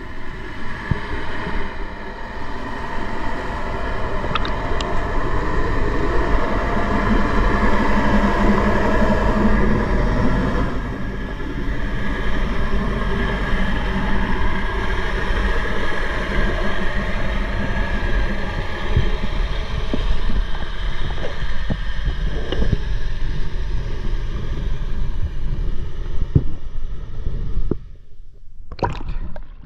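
A steady mechanical rumble with a constant hum, like a motor running. It drops away sharply near the end, and a brief sharp noise follows.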